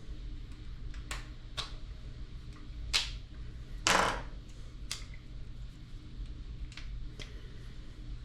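Small screwdriver ticking and scraping against a metal unloader-valve piston while prying an O-ring loose: a scattered series of sharp clicks, the loudest a short scrape about four seconds in, over a low steady hum.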